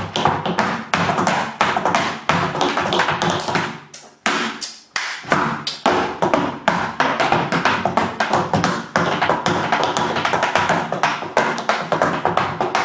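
Tap shoes striking a raised wooden tap board in a fast, dense run of taps, with a short break about four seconds in.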